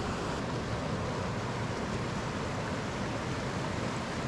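Fast-flowing mountain river rushing: a steady, even noise of running water.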